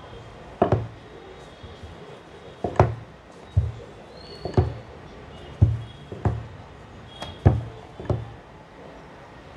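Wooden rolling pin rolling out flatbread dough on a round rolling board, with a short wooden knock at each stroke, about eight knocks roughly a second apart.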